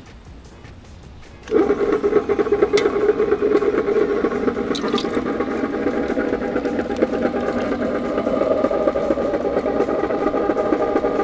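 Cuisinart electric ice cream maker switched on about a second and a half in, its motor turning the frozen bowl with a loud, steady hum while liquid chocolate ice cream base is poured in.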